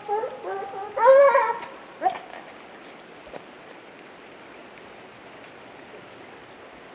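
Lion hounds at a treed mountain lion giving several short, rising, high cries in the first two seconds, the loudest about a second in; after that only a faint steady background hiss.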